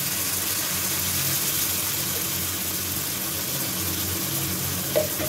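Ground spices, ginger paste and tomato sizzling steadily in hot oil in a steel kadai just after a splash of water has gone in, a constant hiss over a low hum.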